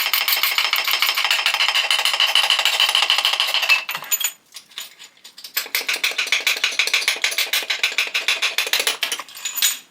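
Ratchet wrench clicking rapidly in two runs of about four seconds each, with a short pause between, as bolts are backed out of the LS1 engine's crankshaft main bearing caps.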